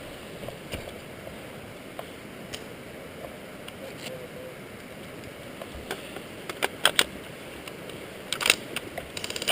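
Quiet outdoor background with a few sharp, separate clicks about six to seven seconds in, then a short quick cluster of clicks near the end.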